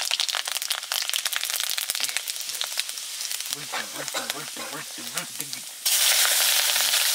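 Spices crackling and sizzling in hot oil in a wok over a wood fire. About six seconds in, chopped onion is tipped into the oil and the sizzle jumps at once to a much louder, steady hiss.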